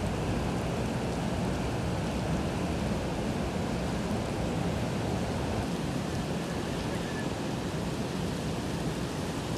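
Heavy wind-driven rain in a storm: a steady, even rush of rain and wind with no breaks.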